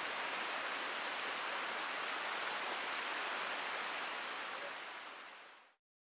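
Steady hiss of rain falling on the tarp and the ground around it, fading out near the end.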